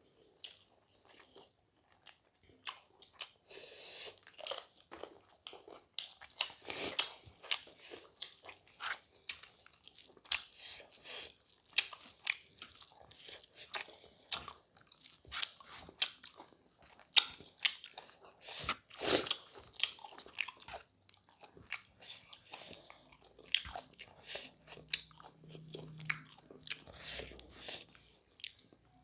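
Close-up chewing of chicken: wet smacking and crunchy bites in an irregular patter of short clicks, with one louder crunch a little under two thirds of the way through.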